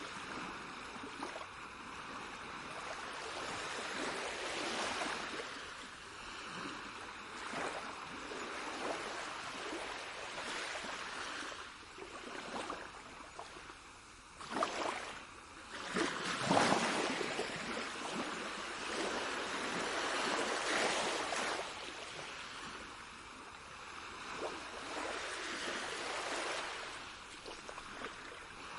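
Rushing, splashing water that swells and eases every few seconds. The loudest surges come a little past the middle.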